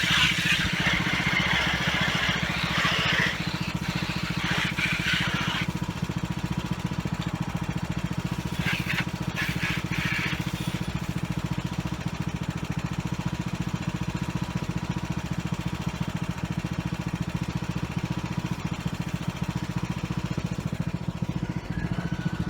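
Lawn mower engine running steadily at idle, left on to recharge a weak battery. A few short noisy bursts rise over it in the first few seconds and again about nine to ten seconds in.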